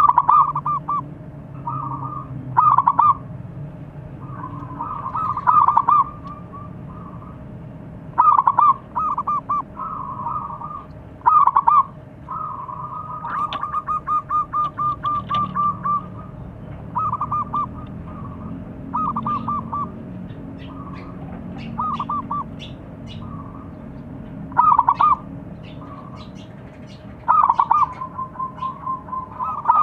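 Zebra dove (perkutut) cooing over and over: short bursts of rapid staccato coos every two or three seconds, with a longer run of even notes about thirteen seconds in.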